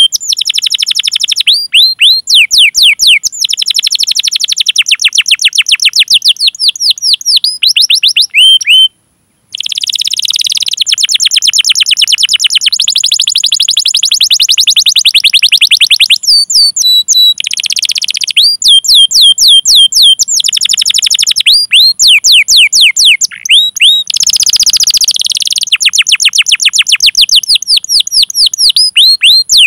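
Domestic canary singing loudly: runs of repeated sweeping 'cuit cuit' whistled notes alternating with long, fast rolling trills. The song breaks off for about half a second about nine seconds in.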